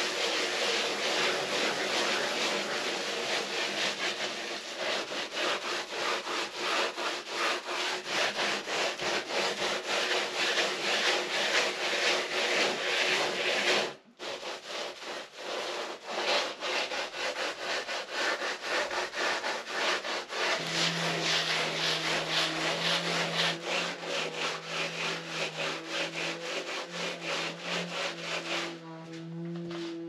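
A plastering trowel scrapes over fresh hemp-lime plaster on a wall in quick repeated strokes. The scraping breaks off sharply about halfway through, then resumes, and a low steady hum joins it in the second half.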